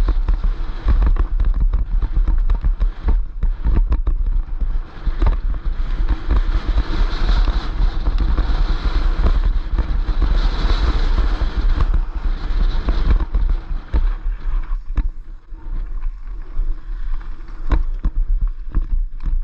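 Wind buffeting the microphone of a helmet-mounted camera on a fast downhill mountain-bike descent, with tyres running over gravel and rocks and sharp knocks and rattles from the bike over the bumps. A rushing hiss grows louder for several seconds in the middle, and the sound turns quieter and more broken near the end.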